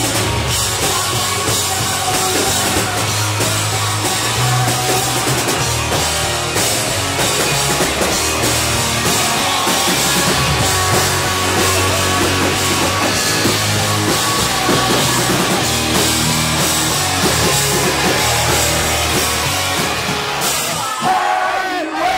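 Live rock band playing loud and fast with no singing: drum kit, distorted electric guitar and electric bass. Near the end the band stops and crowd cheering rises.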